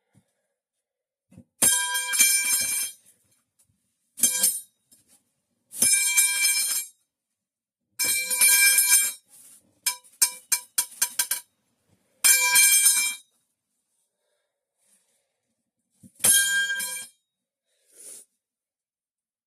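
The metal pipe falling sound effect, repeated: a metal pipe clanging and ringing, about seven times at uneven gaps, with a quick run of short clangs near the middle.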